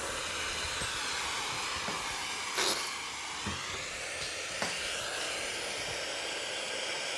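Small hand-held gas torch hissing steadily while heating a silver setting on porcelain for soldering, with a short knock about two and a half seconds in.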